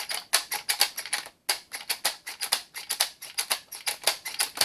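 .22 LR cartridges being pressed into a magazine with a Lightnin' Grip loader, a quick run of sharp clicks, about six a second, one per round, with a brief pause a little over a second in.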